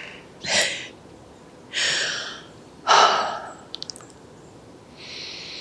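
A person breathing close to the microphone: three breathy exhalations like sighs in the first three seconds. A quick group of three faint ticks follows about four seconds in, and a soft hiss comes near the end.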